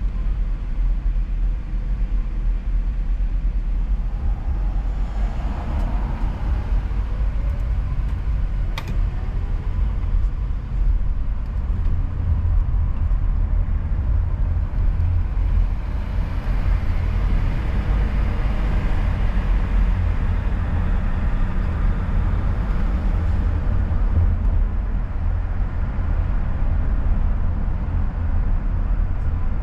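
Car driving along a road: steady low engine and tyre rumble with road noise, and a single sharp click about nine seconds in.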